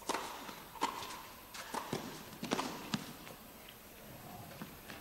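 A tennis rally: the ball is struck by rackets and bounces on the court in a run of sharp pops, about eight hits over the first three seconds.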